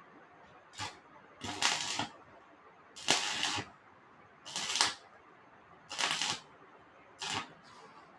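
Electric arc welding in about six short bursts, each under a second long with a gap of about a second between them: tack welds being struck on steel square bar.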